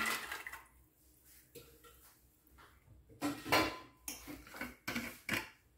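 Soaked chickpeas sliding from a steel bowl into a stainless steel pressure cooker, trailing off in the first half-second. Then a handful of sharp steel-on-steel clinks and knocks from about three seconds in, one ringing briefly.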